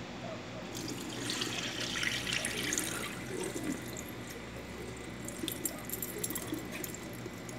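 Rice being washed by hand in a stainless steel bowl of water at a kitchen sink: water swishing around the grains, then poured off into the sink as the bowl is tipped to drain, with small drips and clicks.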